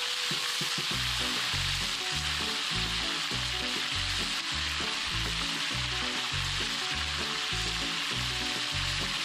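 Whole spiny lobster sizzling and frying in hot oil in a large pan, a steady hiss. Background music with a steady low beat comes in about a second in.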